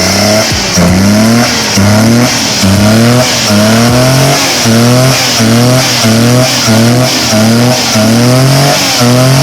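EFI car engine revved in quick repeated throttle blips, the pitch rising with each blip, about one every three quarters of a second. It is running smoothly after its misfire was repaired.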